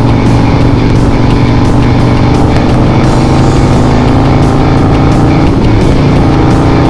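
Harley-Davidson Sportster's air-cooled V-twin engine running steadily under way, with music playing over it.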